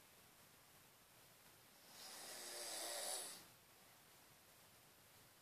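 A sleeping woman snoring: one breathy snore about two seconds in, growing louder for about a second and a half before it cuts off, with quiet breathing either side.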